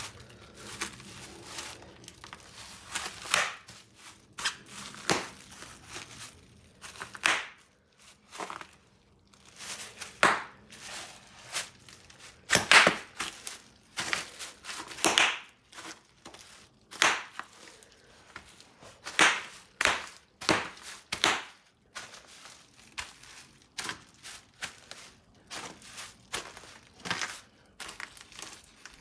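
Plastic bubble wrap being popped by hand: sharp pops at irregular intervals, a louder one every second or two with smaller pops and crinkling of the plastic in between.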